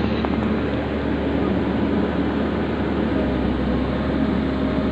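An engine running steadily at an even speed, with no change in pitch.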